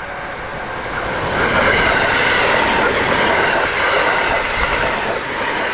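JR Hokkaido 721 series 5000-subseries electric train passing through the station at speed, without stopping. Its rushing noise builds over the first second or so, holds loud with a steady high whine running through it, and starts to fade near the end.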